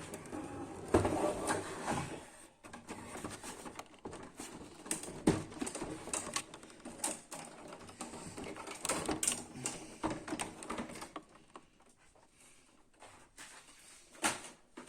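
Plastic printer housing being handled: irregular clicks, knocks and rattles as the latches are released and the scanner unit of the printer is lifted off, with a sharper knock about a second in, another around five seconds in and one near the end.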